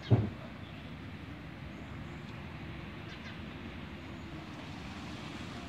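A single dull knock right at the start, then a steady low background rumble.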